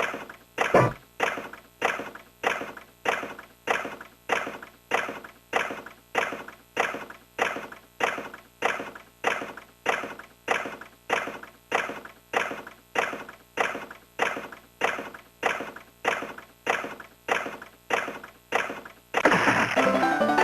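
Electronic chime tones from a Sankyo Fever Big Chime pachinko machine, a ringing ding repeating steadily about one and a half times a second, each one fading fast. Near the end a loud, continuous electronic sound with warbling, siren-like tones takes over.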